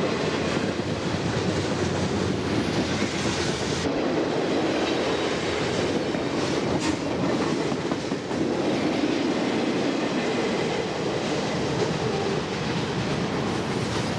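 Freight train boxcars rolling past at close range: steady noise of steel wheels running on the rails, with clickety-clack over the rail joints.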